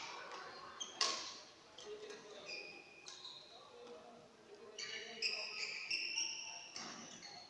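Badminton play in a large indoor hall: shoe squeaks on the court floor and sharp racket strikes on the shuttlecock, echoing. The strikes come about a second in and near the end, and the squeaks bunch up in the second half.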